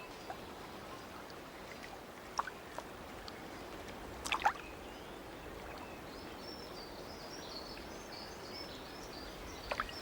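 Steady outdoor nature ambience, an even rushing noise like distant surf or running water, with a few sharp clicks, the loudest about four and a half seconds in. From about six seconds in there is faint, high, wavering chirping.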